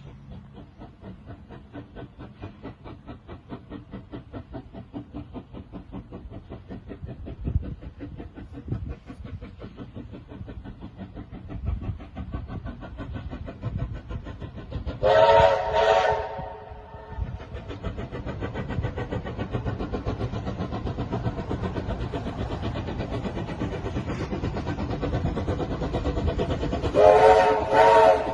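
Steam locomotive working, its exhaust beats quickening and growing louder as it gets under way. Two short whistle blasts sound about halfway through, and two more near the end.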